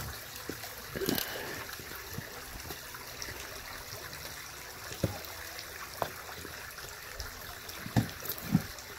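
Running water trickling steadily, with a few short knocks and thumps as plastic jerrycans are handled and lifted.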